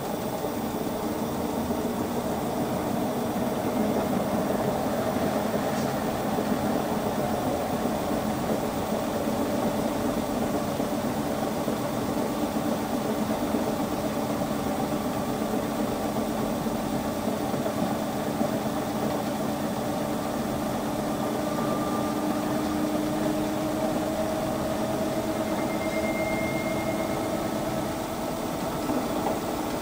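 LG VC2 front-loading washer-dryer running between the wash and the first rinse: a steady mechanical hum with several tones that slowly rise in pitch, and a brief higher whine about 26 seconds in.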